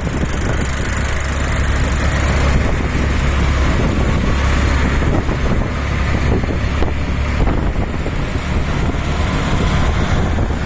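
Auto rickshaw driving along at speed, heard from its passenger seat: its small engine runs steadily with a low hum, mixed with road noise and the sound of passing traffic.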